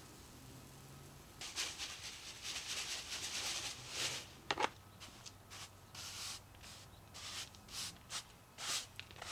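Rubbing and scraping handling noises in irregular short bursts, with a sharper scrape about four and a half seconds in.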